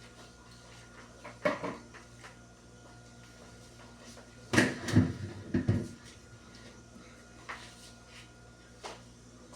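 Knocks and clunks of things being taken out of, moved in and set down in a refrigerator during cleaning. One knock comes about a second and a half in, a quick cluster of louder clunks about five seconds in, and a couple of light taps near the end.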